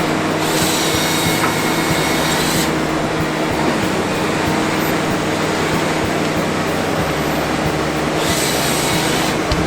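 Forestry harvester working with a steady engine and hydraulic drone. Twice a higher hiss rises over it, about half a second in for two seconds and again near the end.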